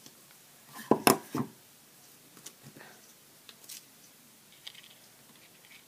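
Hard plastic paper craft punch being handled and turned over on a craft mat: three sharp clacks close together about a second in, then a few faint light taps.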